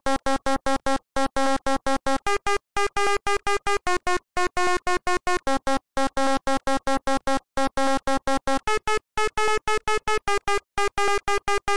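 Synthesized electronic music from an Amiga 4K intro: a run of short, chopped synth notes, about four or five a second with silent gaps between them. The pitches change a few times before the music cuts off at the end.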